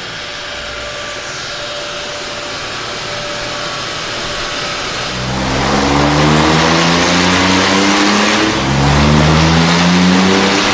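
Porsche 992 Turbo S twin-turbo flat-six, breathing through a Capristo exhaust with 200-cell catalysts, on a dyno pull. It runs lightly at first, then about five seconds in goes to full throttle and gets much louder, revs climbing. There is a brief drop at a gear change partway through, then the revs climb again.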